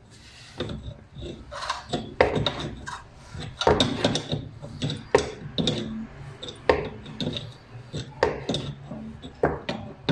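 Irregular knocks, clicks and scraping of tools and parts being handled.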